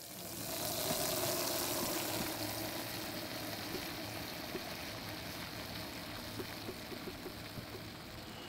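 Water running from a kitchen tap into a washing-up bowl full of soap suds, a steady rush with faint scattered crackles.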